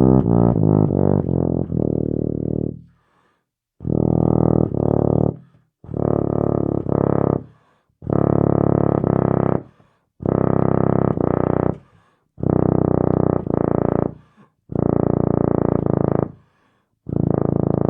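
Tuba playing in the low register: a run of notes stepping downward, then a series of short low phrases of two or three notes each, separated by brief breaths.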